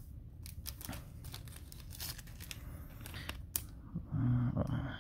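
Thin plastic penny sleeve crinkling and rustling as a trading card is handled and slid into it, with scattered light clicks of card and plastic.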